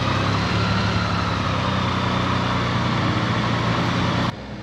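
Motorcycle engine running steadily under way, with wind rushing past. It cuts off abruptly near the end, leaving a much quieter background.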